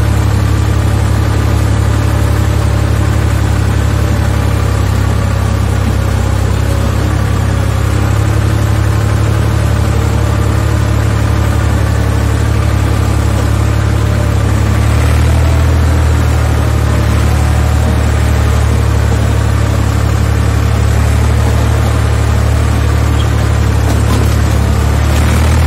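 A 255 tractor's diesel engine running steadily with a loud, low drone that shifts slightly in pitch about halfway through.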